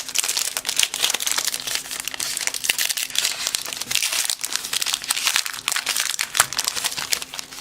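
Plastic wrapper of a baseball card pack crinkling as it is handled and torn open, with a sharper crackle about six and a half seconds in.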